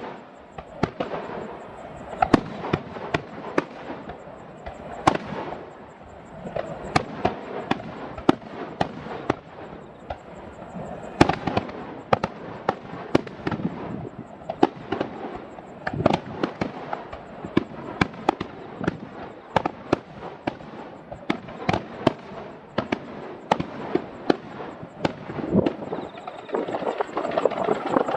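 Aerial fireworks shells bursting in a dense finale barrage: a continuous run of sharp bangs, several a second, over rumbling and crackle.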